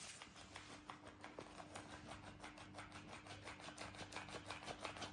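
Battery-powered flopping-fish cat toy set off by a kitten's grip: a faint steady motor hum that starts under a second in, with fast, even ticking as its tail flaps.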